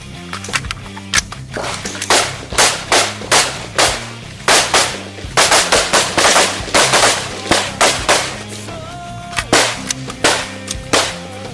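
AR-15 rifles firing strings of rapid shots, some in quick clusters, as magazines are shot empty. There is a short pause about two thirds of the way through. Background music with a steady bass line runs underneath.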